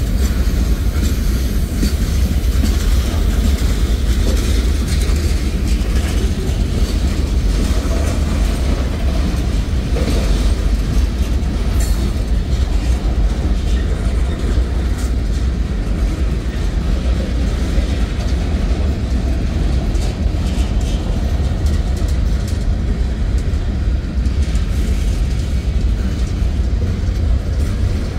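Freight cars of a manifest train (boxcars, tank cars and covered hoppers) rolling steadily past: a deep, even rumble of steel wheels on rail, with light wheel clatter over the rail joints.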